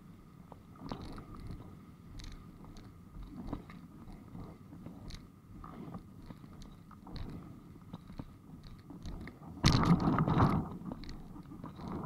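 Windsurf board sailing on water, heard through an onboard action camera: a low rumble of water and board noise with scattered small knocks and clicks, and a louder rush of noise lasting about a second, ten seconds in.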